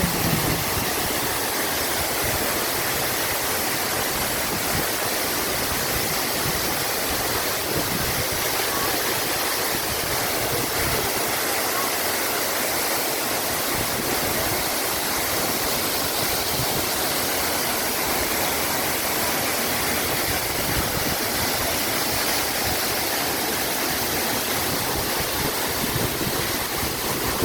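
Waterfall rushing steadily, its falling water making a constant, even roar of noise.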